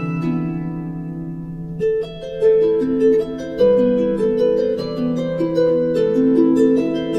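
Instrumental background music of plucked, harp-like notes in a flowing melody, with a new phrase starting about two seconds in.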